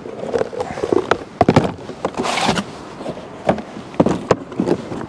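Bait packets being handled: irregular knocks and clicks with a crinkly rustle about two seconds in.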